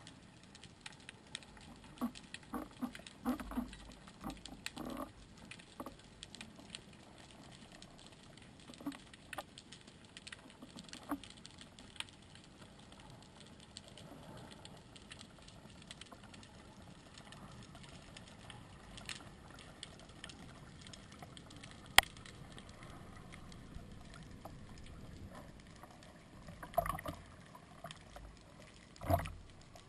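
Underwater ambience heard through a camera housing: a faint crackling hiss with scattered small clicks and one sharp click about two-thirds through. Near the end come a few louder knocks and water swishes as the speargun and camera reach the surface.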